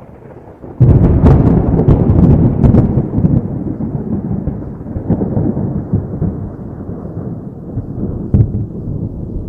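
A close thunderclap: a sudden loud crack a little under a second in, crackling for about two seconds, then a long low rumble that slowly fades, with one more sharp crack near the end.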